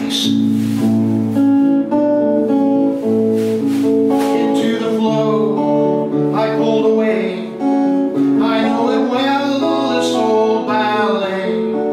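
A song on guitar, strummed and plucked, with a voice singing long, wavering held notes over it around the middle and near the end.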